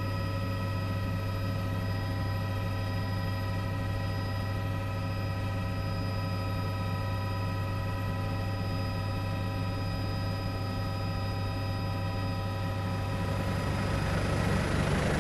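Steady cabin drone of a turbine-powered surveillance aircraft, heard on the crew's audio: a low hum with several steady whining tones above it, growing slightly louder near the end.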